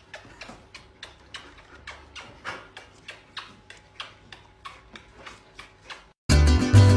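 Faint quick ticking, about four sharp clicks a second, slightly uneven in spacing.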